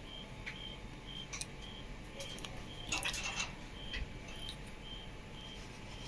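Quiet handling of small table-fan parts: light clicks and rattles of plastic and metal pieces being fitted by hand, busiest about a second and a half in and around three seconds in. A faint short high beep repeats about twice a second underneath.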